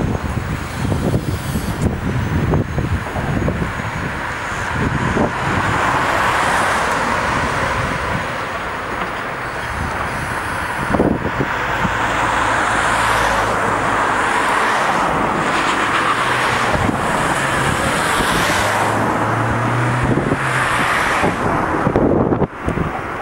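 City street traffic: a steady rush of tyres and engines from passing cars, with a motor vehicle's low engine hum coming up in the second half.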